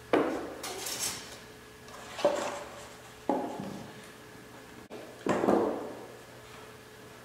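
Preformed curved drywall panels being set down and knocked against one another on a concrete floor: four sharp knocks a second or two apart, each trailing off in the room's echo. A faint steady hum runs underneath.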